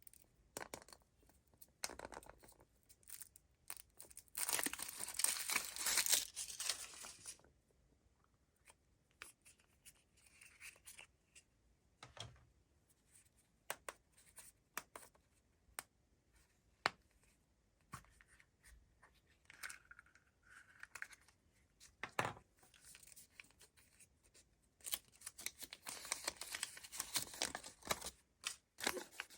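Foil wrapper of a Kinder Surprise chocolate egg being torn and crinkled, in two longer bouts of rustling, with scattered small clicks and taps in between.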